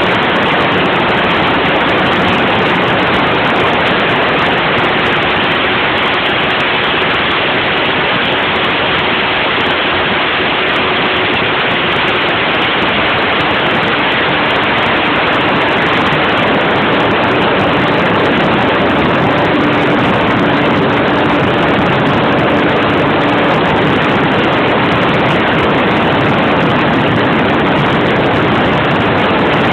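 Steady, loud rushing of wind over a mobile phone's microphone, with a faint hum beneath it.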